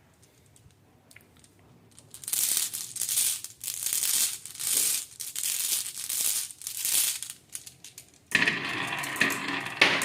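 Marbles clattering and rattling down a wooden HABA marble run in a string of uneven runs. About eight seconds in, a denser, louder clatter sets in as many marbles pour through at once.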